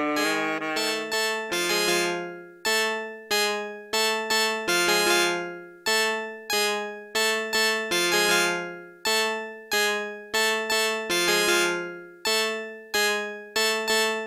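Background music on a keyboard: short struck chords, each ringing and fading before the next, in an uneven stepping rhythm.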